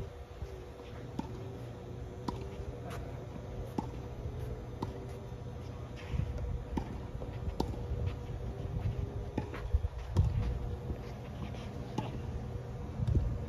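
Tennis rally: a string of short, sharp knocks of the ball being struck by rackets and bouncing on the court, roughly one every half second to a second, over a steady low rumble.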